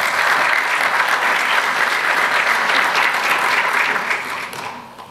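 Audience applauding, dying away in the last second.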